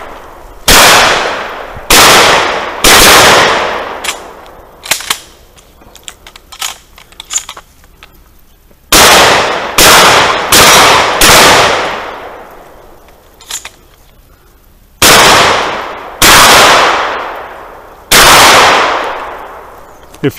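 Close gunfire from a rifle and then a shotgun: about ten loud shots in three quick groups, each echoing away over about a second. A few faint clicks and clanks come in the pauses between the groups.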